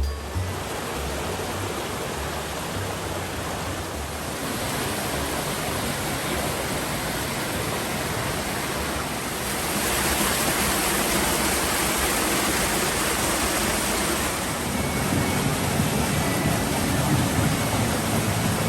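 Rushing water of a mountain creek and waterfall: a steady, full hiss that grows louder about ten seconds in.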